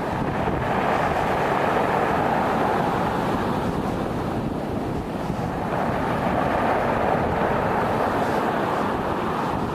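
Stormy wind and sea: a steady rushing noise that swells and eases slightly.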